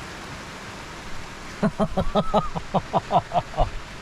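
Steady hiss of heavy rain. About a second and a half in, a man's voice starts a quick run of short pitched sounds, about five a second, that lasts some two seconds without forming words.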